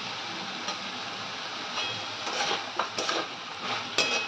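Chicken and vegetables sizzling steadily in a metal wok; from about two seconds in, a metal spatula scrapes and clinks against the wok as the stir-fry is tossed, with a sharp clink near the end.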